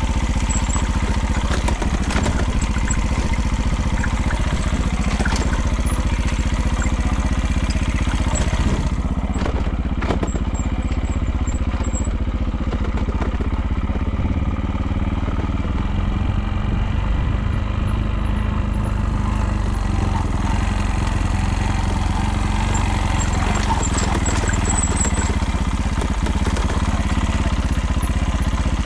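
Small vehicle engine running steadily with a constant rattling clatter over it, an unexplained abnormal noise whose cause the owner could not find.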